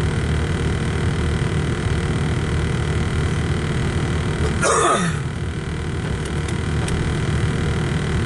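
Steady low rumble heard inside a stopped car's cabin: the idling engine and a freight train rolling through the crossing. About halfway through, a brief vocal sound falls quickly in pitch, like a grunt.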